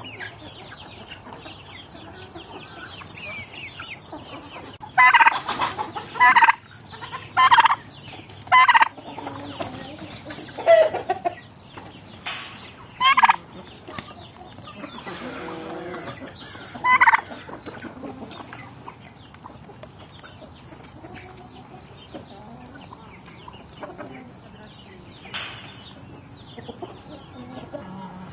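A mixed flock of chickens and turkeys calling: steady clucking throughout, broken by loud short calls and gobbles several times in the first two-thirds. Near the end only the clucking goes on.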